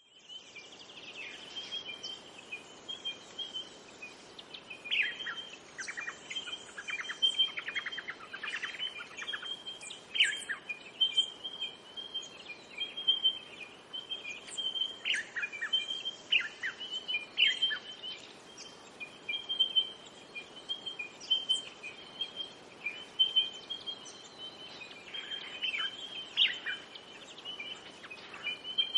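Wild birds calling: a high, rapidly pulsing chirping that keeps going, with clusters of quick falling notes every few seconds, over a faint steady hiss.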